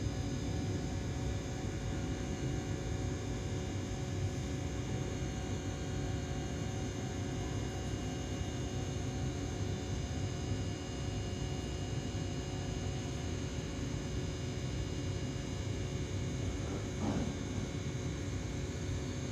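Steady electric hum with several held tones over a low rumble, from a Tobu 8000-series electric train standing at the platform with its equipment running. A brief rising sound comes near the end.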